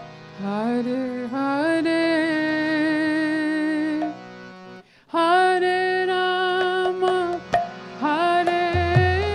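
Woman singing a slow kirtan melody in long held, sliding notes over a steady harmonium drone, with a short pause about halfway through. A hand drum comes in with low beats near the end.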